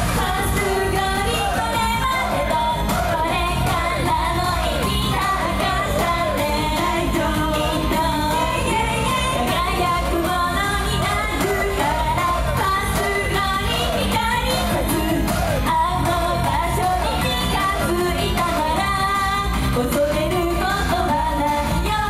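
Japanese idol pop song performed live: female voices singing a melody over loud, steady pop backing music.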